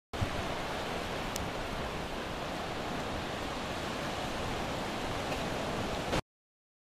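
Steady rush of low ocean surf washing through the shallows, with one faint tick about a second and a half in; the sound cuts off abruptly near the end.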